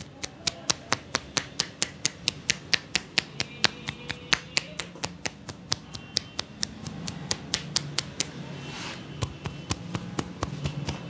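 Head massage with palms pressed together, tapping the top of the head in quick sharp pats about four a second. The pats grow fainter from about eight seconds in.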